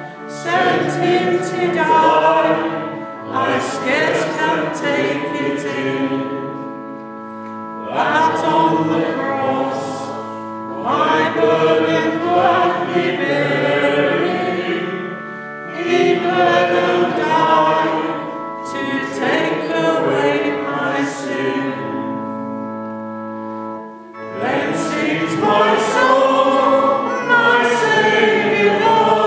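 A church hymn sung in phrases, line by line, over steady accompaniment notes that are held through the short pauses between the lines.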